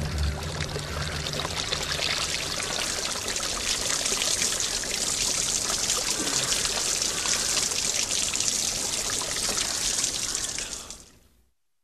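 Water pouring down in a steady, splashing stream, fading out near the end.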